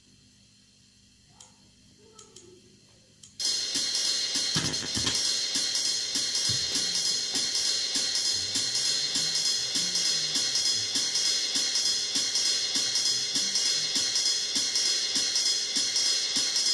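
A few faint taps, then about three seconds in a recorded drum backing track with a busy hi-hat starts abruptly. An electric bass guitar plays a bass line along with it.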